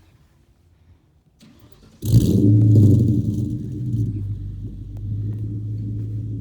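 2003 Ford Mustang GT's 4.6-litre V8, with Borla Stinger exhaust and an off-road X-pipe, being started: brief cranking, then the engine catches about two seconds in with a loud flare of revs and settles into a steady low idle.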